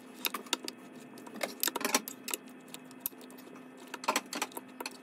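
Metal fork clinking and scraping against a glass bowl while stirring chicken drumsticks through a wet egg marinade and cornflour. The taps are quick and irregular, with a dense flurry about two seconds in and another near the end. A faint steady hum runs underneath.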